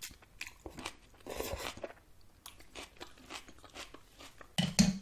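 Close-miked eating sounds: slurping soupy ramen noodles, then chewing with wet mouth clicks and smacks. A louder, short burst comes near the end.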